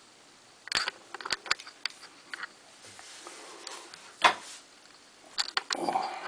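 Handling noise from a handheld camcorder: a scatter of short sharp clicks and knocks over a quiet room background, the loudest single knock about four seconds in and a quick cluster near the end.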